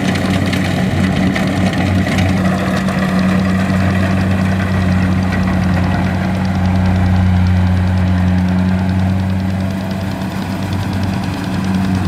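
Engine of a rice-harvesting machine running steadily with a low, even hum, a little louder around the middle of the stretch.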